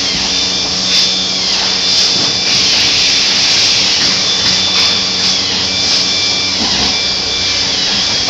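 Factory-floor noise on an RV assembly line: a steady loud hiss with the high whine of a power tool running several times for a second or two, its pitch falling each time it stops.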